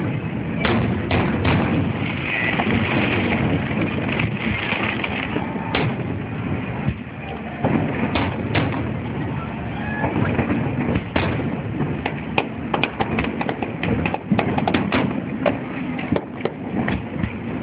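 Aerial fireworks shells bursting: separate booms a second or several apart, then a dense run of rapid cracking reports in the second half.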